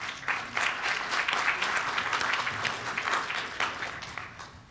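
Audience applauding, strongest over the first few seconds and dying away near the end.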